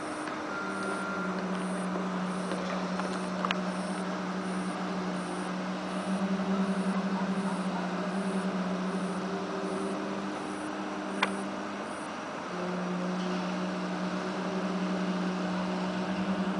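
A low, steady drone with a horn-like tone, like a trumpet or a truck horn, begins about half a second in, cuts out for a moment about twelve seconds in and then resumes. The recorder takes it for one of the worldwide unexplained 'strange sounds in the sky'.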